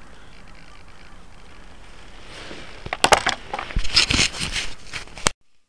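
Close-up handling noise: a run of clicks, knocks and crunching rustle starts about three seconds in, after a faint steady hiss. It cuts off suddenly near the end.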